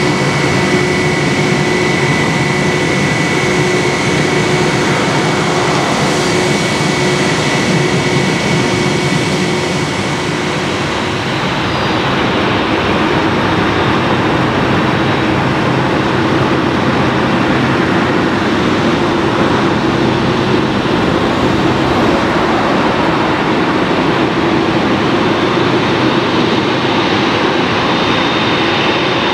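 Airliner jet engines running steadily, a dense rushing noise with a steady whine. About twelve seconds in it changes to another airliner's engines, with a lower hum and a thin high whine: from a Lufthansa Airbus A321 to a Boeing 747-8.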